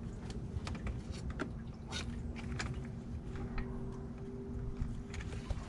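Irregular sharp clicks and light knocks from hands working on hoses, clips and clamps in a truck's engine bay, over a steady low rumble with a faint hum in the middle.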